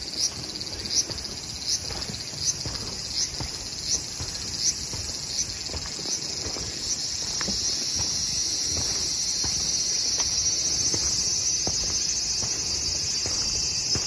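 Insects calling in a forest. A high chirp repeats about every three-quarters of a second and fades out around six seconds in, while a steady, high, continuous buzzing trill grows louder from about seven seconds in.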